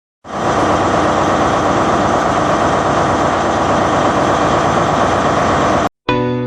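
London Underground train running, a loud, steady rumble of wheels and motors that starts abruptly and cuts off suddenly near the end, followed by piano music.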